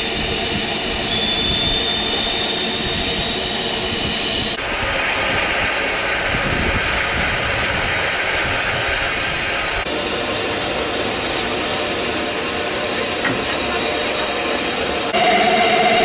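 Double Fairlie steam locomotive Merddin Emrys standing with steam hissing steadily from around its cylinders and wheels. The sound jumps abruptly three times: about a third of the way in, past halfway and near the end.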